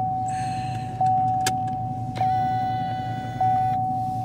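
A 2017 Camaro SS's 6.2 L V8 idling as a low rumble, heard from inside the cabin. Over it an electronic chime tone sounds again about every 1.2 seconds.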